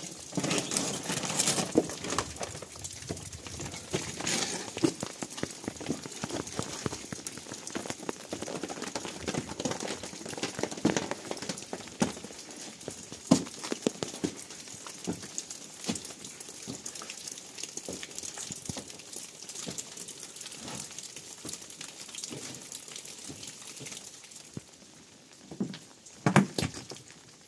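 Footsteps scrambling over loose, wet rocks and gravel: irregular crunches and small clicks of shifting stones, with a louder cluster near the end.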